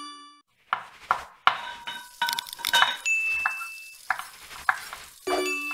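Produced sound effects for an animated logo sting: a ringing chime, then a run of quick clinks and taps like glasses and dishes, a held bright ding about three seconds in, and another chime near the end.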